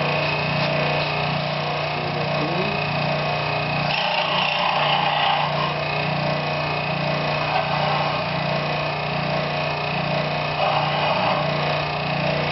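Small electric power saw running steadily, with louder stretches about four seconds in and again near the end as it cuts small wooden pieces.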